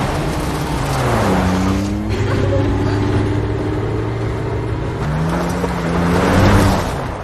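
SUV engine being driven hard, its note climbing twice: about a second in, and again from about five seconds in.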